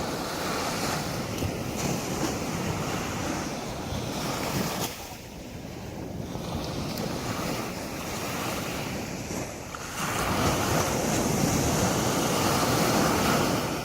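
Sea waves breaking and washing up the beach, a steady surf noise that eases off about five seconds in, then a larger wave crashes in at about ten seconds and keeps rushing until near the end.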